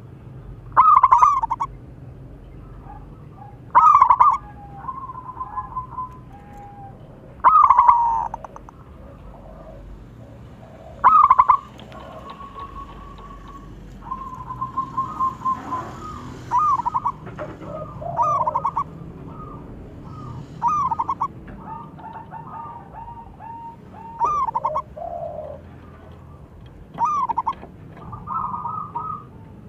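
Zebra dove cooing: four loud, trilled call phrases about three to four seconds apart, followed by a run of softer, closely repeated coo notes.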